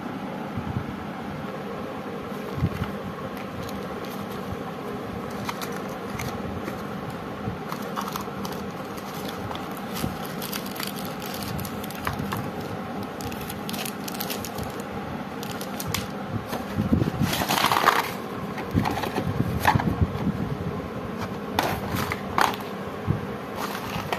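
Small cardboard firecracker boxes and plastic wrapping being handled and opened: scattered rustles, crinkles and clicks, loudest and busiest about two-thirds of the way through, over a steady low hum.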